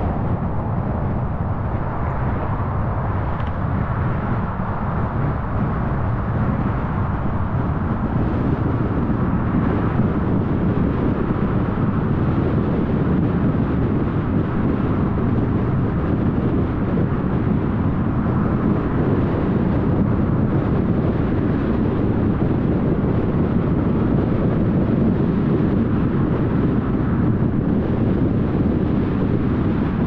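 Steady driving noise of a car moving along a road: tyres rolling on the asphalt with wind and engine hum, getting slightly fuller about a quarter of the way in.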